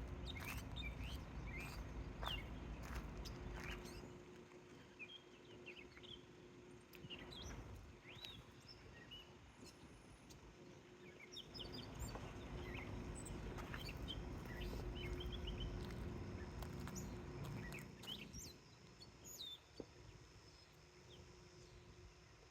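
Many small birds chirping, short scattered calls throughout, over a low background rumble that swells and fades twice and a faint steady hum.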